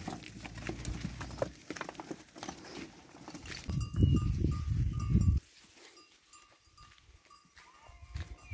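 Flock of sheep walking along a concrete channel, many hooves clattering in quick, irregular clicks. About halfway a loud low rumble lasts a second and a half and stops suddenly, leaving it quiet.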